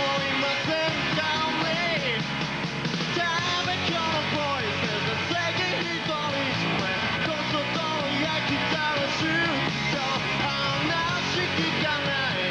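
Live rock band playing: electric guitar and drums, with a male lead vocal sung and shouted over them.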